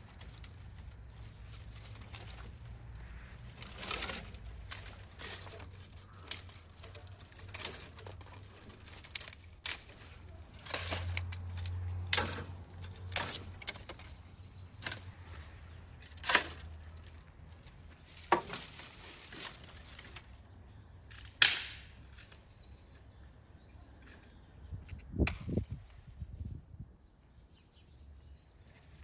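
Irregular sharp knocks and clicks, a couple much louder than the rest, over a faint low hum that dies away about two thirds of the way through.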